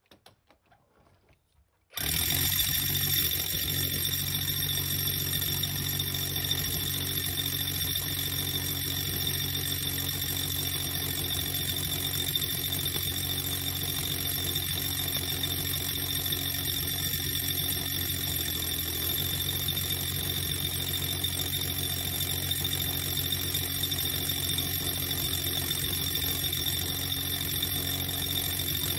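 Power drill boring into red brick with a masonry bit, starting suddenly about two seconds in and then running steadily at one pitch.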